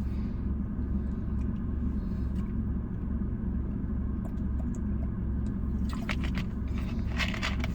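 Steady low rumble of a car's idling engine heard inside the cabin, with a few brief rustles near the end.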